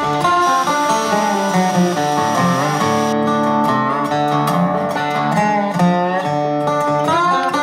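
Background music led by guitar, a steady tune with a few bent notes.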